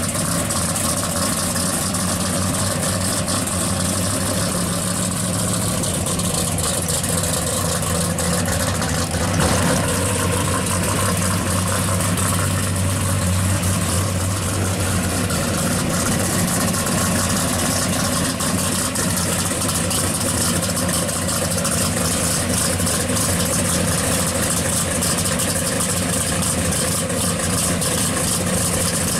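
1970 Plymouth 'Cuda pro street car's V8 engine idling steadily.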